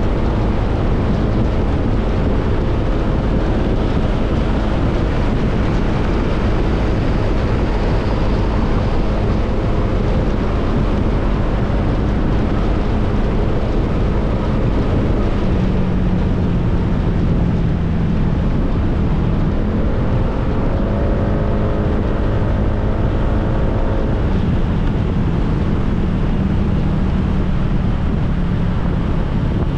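Motorcycle engine running while riding along the road, with wind rushing over the microphone and road noise. The engine note shifts in pitch a couple of times in the second half.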